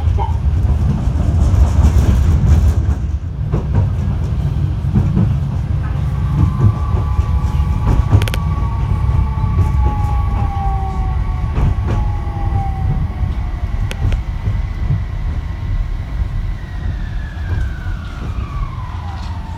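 Interior running noise of a Fukui Railway F1000 low-floor tram: a steady low rumble with a few sharp clicks from the track. An electric motor whine joins about six seconds in and slides down in pitch, dropping steeply near the end as the tram brakes.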